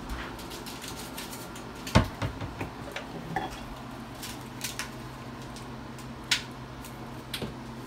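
Kitchen handling sounds: spice jars and containers clicking and knocking as they are taken from a cabinet and handled, with a sharp knock about two seconds in and another a little after six seconds. A flip-top spice shaker cap is snapped open, over a steady low hum.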